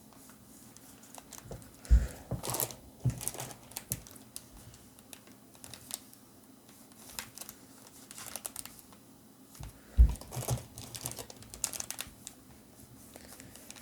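Pokémon booster pack foil wrappers crinkling and cards being handled, a run of soft rustles and clicks. Two sharp thumps about 2 s and 10 s in.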